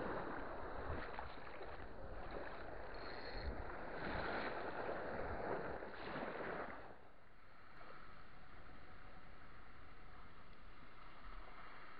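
Small waves washing on a sandy shore with wind on the microphone, dropping to a fainter steady hiss about seven seconds in.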